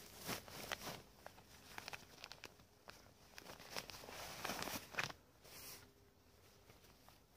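Faint, irregular rustling and crackling with many scattered sharp clicks, loudest for about a second near the middle.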